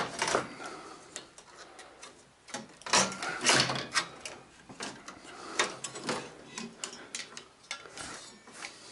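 Irregular clicks, knocks and rattles as the sheet-metal chassis and parts of a Sony Bravia KDL-46XBR4 LCD TV are handled and shifted during disassembly, with a cluster of louder knocks around the middle.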